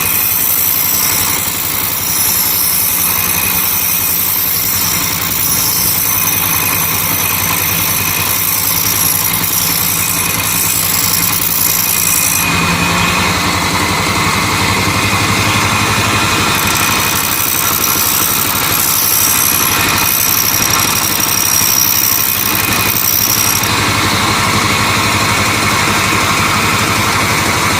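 Bench grinder motor running steadily while a blender blade is ground against the wheel, giving a steady hum under a high grinding hiss. The hiss changes character about halfway through and again near the end.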